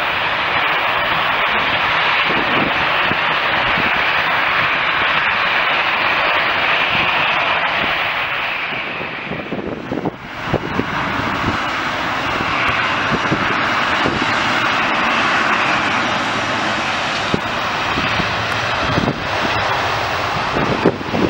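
Airliner passing close by, its engines making a loud, steady noise that dips briefly about ten seconds in and then swells again.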